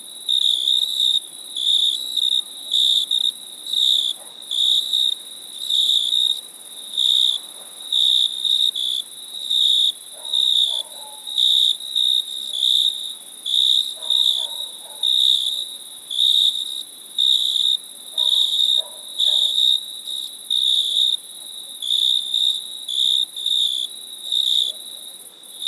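Crickets chirping in a steady, regular pulse of high-pitched chirps, a few a second, over a continuous higher-pitched hiss.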